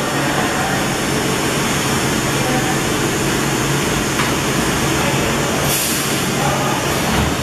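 25 kW high-frequency PVC tarpaulin welding machine running, a steady machine hum with a low droning tone, and a short hiss about six seconds in.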